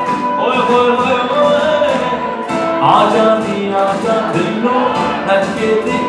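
Live band music amplified through a PA, with a man singing the lead into a microphone over a steady percussion beat.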